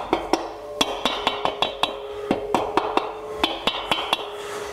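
A mallet tapping an aluminium motorcycle cylinder head down over tight studs onto the barrel. It is a quick, uneven run of light knocks, several a second.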